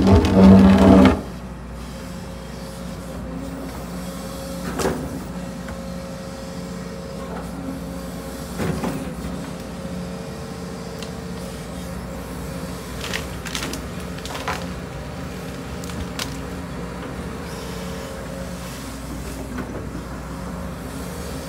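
Case CX210D excavator's diesel engine and hydraulics running steadily under work, with a loud surge in the first second. Sharp knocks from the working bucket come every few seconds.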